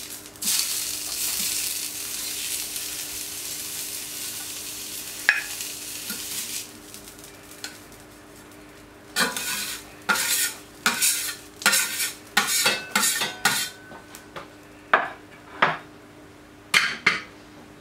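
Oil and seared sesame-crusted tuna sizzling on a hot steel plancha, fading after about six seconds. From about nine seconds a metal spatula scrapes across the plate in a run of short, quick strokes, clearing off the loose sesame seeds.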